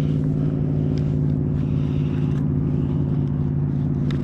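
A motor running steadily: a constant low hum that does not change in pitch, with a couple of faint clicks.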